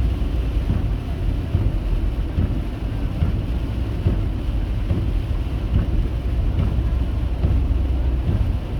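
Steady low rumble of storm wind buffeting the microphone.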